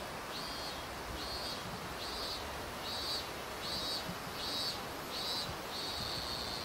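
High-pitched insect call: a run of short buzzy notes about once a second that runs into one steady, unbroken note near the end, over a steady wash of water noise.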